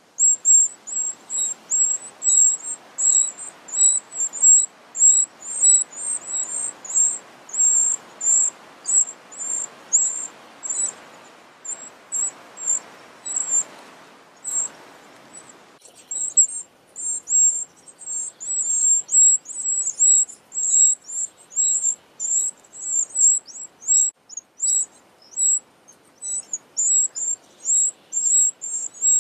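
Eurasian wren nestlings begging for food: a rapid series of thin, very high cheeps, two or three a second, that stops for a moment about halfway through and then comes back faster and denser.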